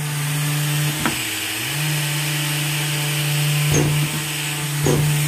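SurfPrep 3x4 Electric Ray orbital sander with a foam interface pad running steadily while sanding the profiled edge of a painted cabinet door. Its hum drops in pitch briefly about a second in, then comes back up, with a few light knocks of the pad against the edge near the end.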